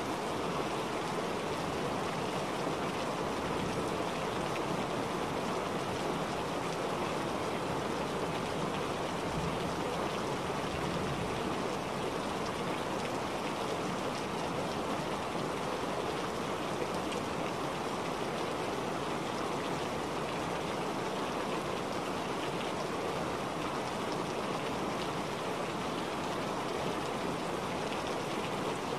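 Steady rushing-water noise, an even unbroken wash with no separate drops or changes: the background sound layer of a subliminal audio track.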